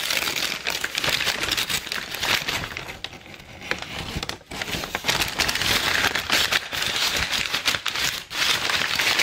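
Crumpled brown kraft packing paper crinkling and rustling as it is handled and unwrapped, with a brief lull about three to four seconds in.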